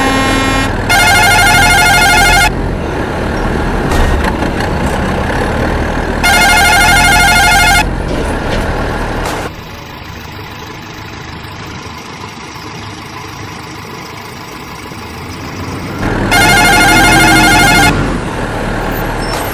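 Truck engine running, with a horn blown three times, each blast about a second and a half long and wavering in pitch. The engine drops quieter about halfway through.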